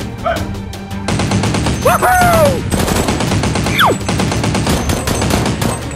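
Rapid automatic gunfire sound effect, a dense stream of shots that thickens about a second in, dubbed over the Nerf battle in place of the blasters' own sound.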